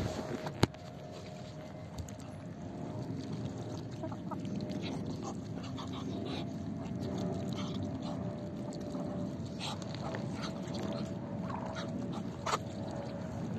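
Hens and Muscovy ducks feeding together, with quick pecks at the ground and low clucking. A sharp click comes about half a second in and another near the end.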